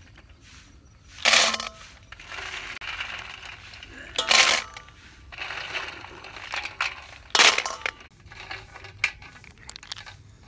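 Handfuls of wet snail shells dropped into a stainless steel bowl: three loud, brief clattering crashes about three seconds apart, the bowl ringing faintly. Water swishes and small shell clicks come in between as the next handful is scooped from the washing water.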